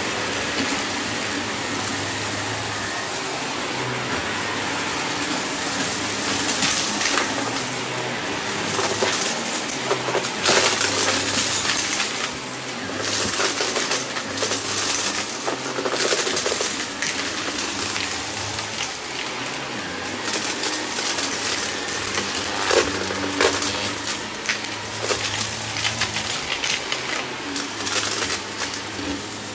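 Shark upright vacuum cleaner running on a shag rug, with small bits of debris rattling and clicking as they are sucked up through the nozzle. The clicks come in irregular flurries over the steady motor noise.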